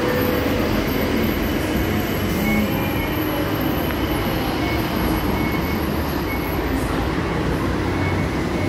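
Steady city noise of road traffic and an elevated rail station, an even continuous rumble with no distinct events.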